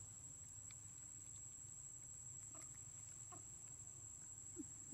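Quiet outdoor ambience: a steady high-pitched whine over a low hum, with a few faint, short animal calls, two of them a little louder near the end.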